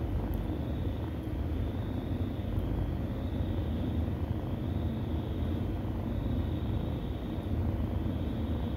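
Cat purring: a steady low rumble that swells and eases in a slow rhythm, about every second and a half.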